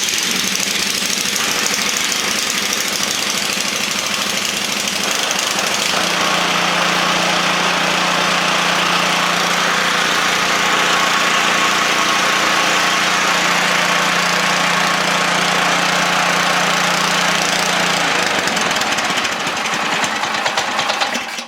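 Ariens Deluxe 24 snowblower's single-cylinder LCT engine catching on the first pull and running loud at full throttle, freshly refuelled after old gas was drained. About six seconds in its tone changes and settles, and near the end it is shut off and stops suddenly.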